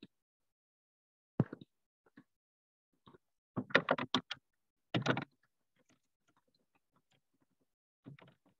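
Computer keyboard and mouse clicks in short clusters: a single sharp click about a second and a half in, a quick run of clacks around four seconds, another short burst about five seconds in, and a few fainter clicks near the end.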